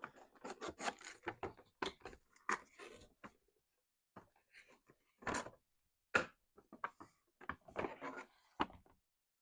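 Handling of a boxed pre-built HO scale model building and its packaging: irregular taps, clicks and scraping rustles, with a pause of about a second and a half in the middle.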